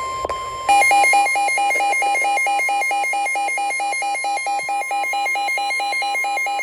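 NOAA Weather Radio's steady 1050 Hz warning alarm tone, with a loud electronic alarm over it from under a second in, switching rapidly between two pitches about four times a second. Together they are the alert signal that comes before a special marine warning message.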